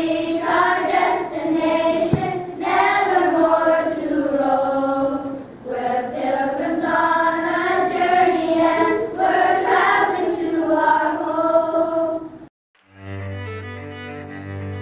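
A children's choir singing together from song sheets, breaking off suddenly about twelve seconds in. A moment later slow instrumental music with long held notes begins.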